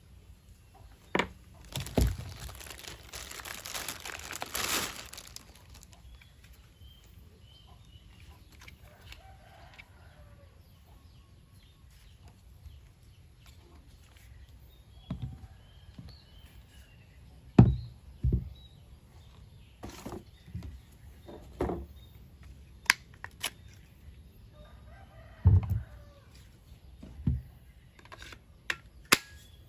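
Knocks and clicks from handling a cordless drill and its packaging, with a rustle of packaging about two seconds in. Faint bird calls in the background.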